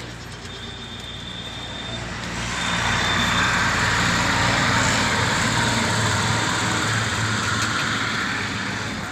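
A road vehicle passing by: its noise swells over a couple of seconds, holds, and then fades away.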